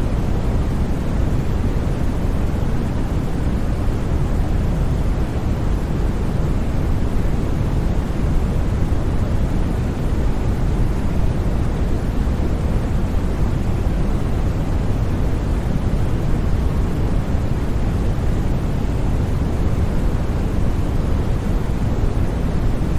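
Steady generated white noise for sleep: an even, unchanging rushing hiss, deeper and fuller in the low range than a bright hiss, with no breaks or sudden sounds.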